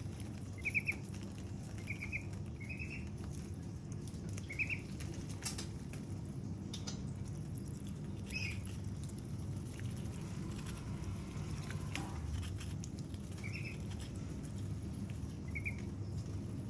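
Young white crested ducks pecking and nibbling at watermelon rind, giving a patter of small wet bill clicks. Short high peeps come now and then, about seven in all, over a steady low background hum.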